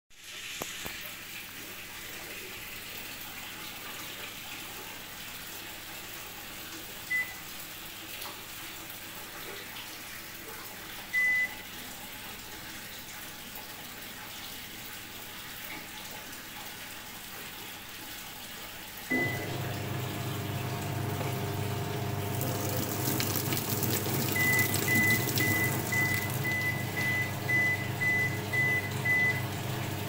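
Top-load washing machine's control panel giving single short beeps as buttons are pressed. About two thirds in, a pump or water valve starts a steady low hum with water rushing, and near the end the panel gives a run of about nine quick beeps.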